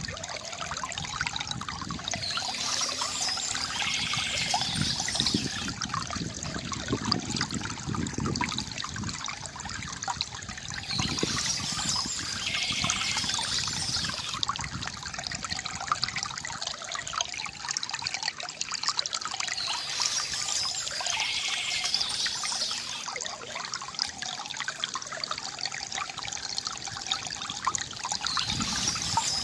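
Water trickling and gurgling steadily from a bamboo fountain, with a brighter, higher sound swelling for a few seconds about every nine seconds.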